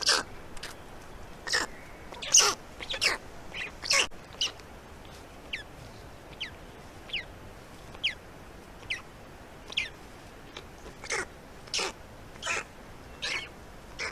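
Birds calling: a long run of short, sharp calls, one every half second to a second. In the middle stretch several are thin whistles that drop quickly in pitch.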